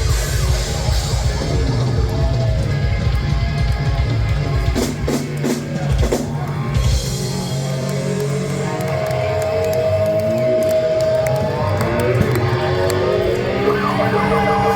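Rock music with a drum kit and electric guitar. Guitar notes glide up and down in pitch in the second half.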